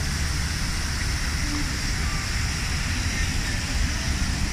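Steady low rumble with hiss, like the running and road noise of a moving vehicle.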